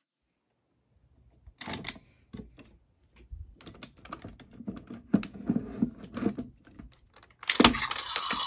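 Plastic clicks, taps and knocks of a DX Desire Driver toy belt being handled and turned over for its Revolve On rotation, with a louder clack near the end.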